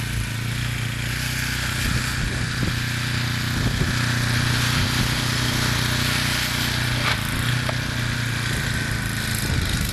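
Snowblower engine idling steadily, with a steady hiss over it.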